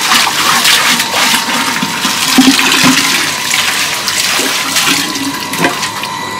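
Water sloshing and splashing in a small brown-glazed earthenware jar as it is rinsed and scrubbed inside by hand, water spilling out over the rim onto a concrete floor.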